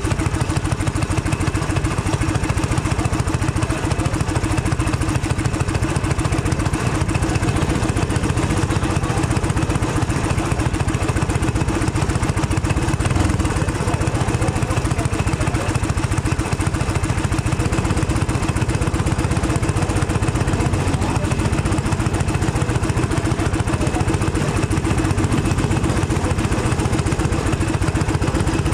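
Racing kart engine idling steadily, with a fast, even firing beat and no revving.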